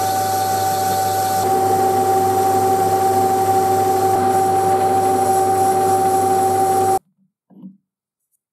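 Metal lathe running while it turns a metal disc: a steady machine whine over a low hum, with a second, lower tone joining about a second and a half in. The sound cuts off abruptly about seven seconds in, leaving near silence with a couple of faint knocks.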